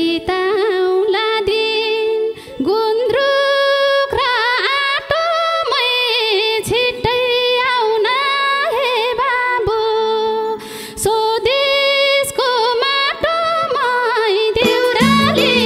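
A woman singing a Nepali lok dohori folk song into a microphone: long held notes with winding ornaments and short breaks between phrases. A quiet steady instrumental accompaniment runs beneath and grows fuller near the end.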